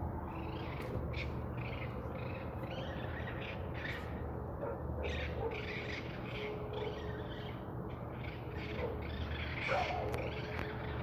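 Birds calling: many short high calls in quick, irregular succession over a steady low hum.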